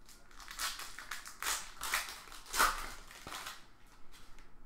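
Plastic wrapper of a Panini Prizm Fast Break basketball card pack being torn open and crinkled by hand: a string of irregular crackling rustles, loudest about two and a half seconds in.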